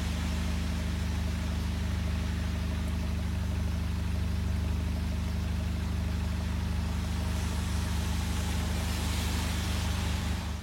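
A steady low mechanical drone, as of an engine idling.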